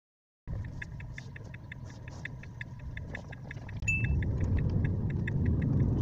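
Tesla turn-signal ticking, played back fast at about five ticks a second, over car cabin and road noise that grows louder about four seconds in. A short beep sounds near the middle.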